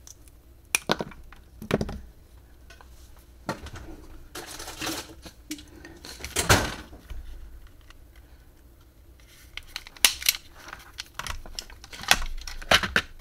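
Wire cutters snipping through a battery charger's output cable, with several sharp clicks and some short scraping as the cut end is handled and its outer insulation is stripped back.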